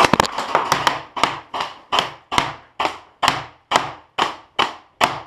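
Paintball marker firing a steady string of shots, about three a second, sharp pops that start suddenly and keep an even rhythm.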